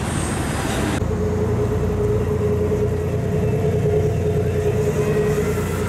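Wind noise on the microphone for about a second, then a KiHa 183 series Aso Boy! diesel railcar running at the platform: a steady low engine hum with a steady mid-pitched whine above it.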